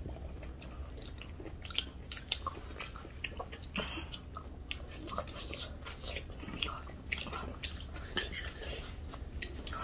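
Close-up chewing and biting of crunchy snack food, with irregular small crunches and wet mouth clicks.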